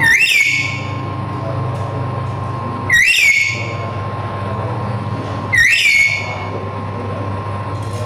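Black-capped lory giving three loud whistled calls, about three seconds apart. Each call swoops up quickly, then holds a steady note.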